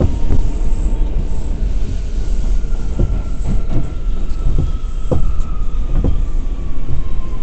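An R179 subway car running at speed, heard from inside: a heavy rumble with the wheels clacking sharply and irregularly over rail joints, and a faint whine that slowly drops in pitch.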